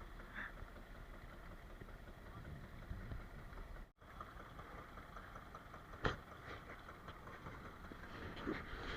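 A boat's engine idling faintly under a low, steady background noise, with a single sharp knock about six seconds in.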